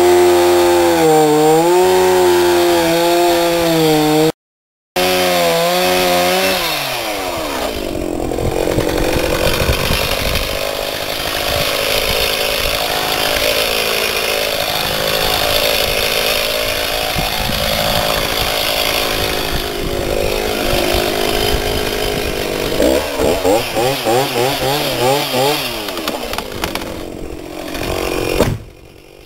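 Two-stroke chainsaw at full throttle, then bogging down and wavering in pitch as it cuts into a dead tree. A half-second gap breaks it about four seconds in. The engine speed wobbles again later, and the sound drops off briefly near the end.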